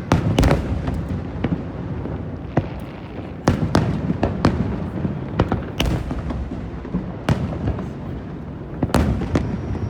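Aerial fireworks bursting in quick, irregular succession: sharp cracks and heavier booms several times a second, over a continuous low rumble.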